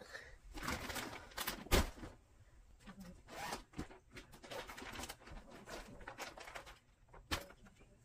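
A clear plastic bedding bag being unzipped and emptied: crinkling plastic and swishing fabric as the bedding is pulled out, with a few sharp clicks, the loudest about two seconds in.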